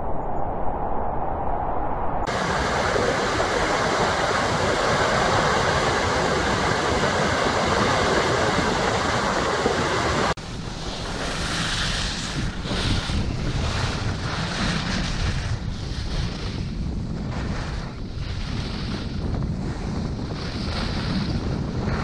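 Strong wind rushing and buffeting the microphone. After a cut about ten seconds in, wind rush continues with a regular hissing scrape of skis turning on snow.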